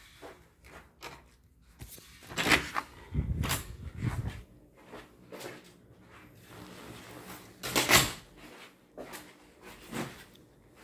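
Wooden cupboard doors being handled, opened and shut: a series of separate knocks and bumps, the loudest about eight seconds in.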